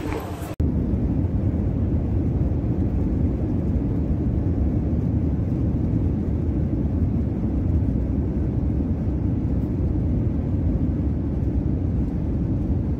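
Steady low rumble inside an airliner's passenger cabin, setting in abruptly about half a second in.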